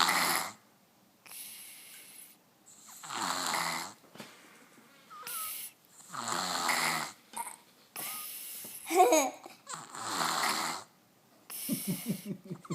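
Baby snoring: four long, loud snores about three seconds apart, with quieter breaths between them.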